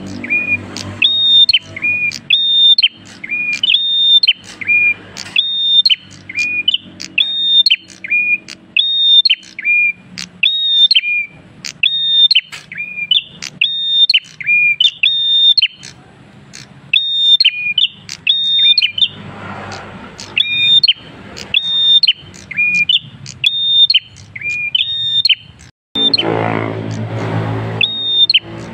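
Caged prenjak kristal singing nonstop: a loud, sharp whistled phrase of a high note dropping to a lower one, repeated about once a second. A low rumbling hum swells up twice, the second time near the end.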